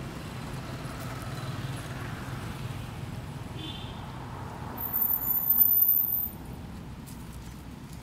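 Steady low rumble of a running motor engine, with a louder burst of noise lasting about a second and a half from about five seconds in.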